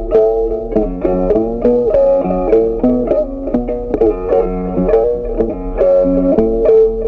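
Background music: an instrumental melody of quickly picked, plucked-string notes with a steady beat.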